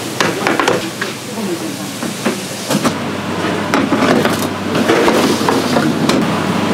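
Stainless-steel trays clinking and scraping against one another as they are lifted and stacked, with scattered sharp metal knocks.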